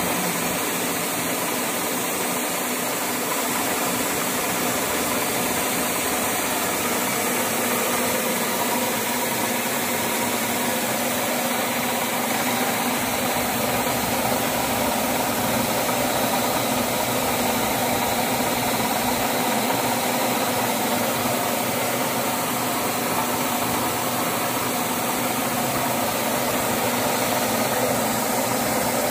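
Metal-turning lathe running steadily under power: a continuous machine hum at even speed, with no starts, stops or changes.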